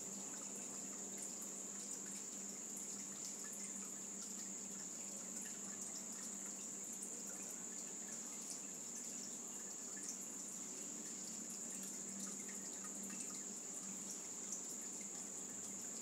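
Shallow water running and trickling steadily, with many small drips and splashes, under a continuous high-pitched steady tone.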